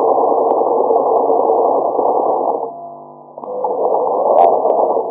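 Domestic sewing machine stitching a seam in two runs: it runs steadily, stops about two and a half seconds in, then starts again under a second later. It sounds muffled, with no high end.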